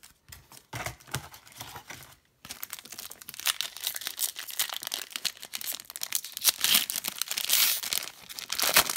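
Foil wrapper of a Pacific Hockey trading-card pack crinkling and tearing as it is handled and ripped open. A dense crackle starts about two and a half seconds in and is loudest near the end.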